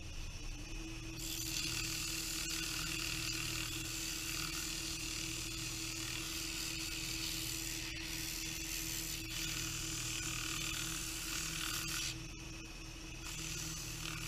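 Wood lathe running with a steady hum while sandpaper is pressed against the spinning turned wooden piece, giving an even hissing rasp. The sanding stops for about a second near twelve seconds in, then starts again.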